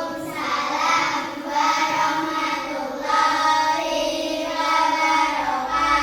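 Children's voices singing a song, with sustained held notes that step from pitch to pitch.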